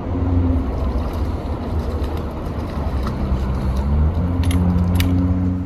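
A motor engine running with a low rumble, its pitch shifting up and down, and a couple of sharp clicks about four and a half and five seconds in.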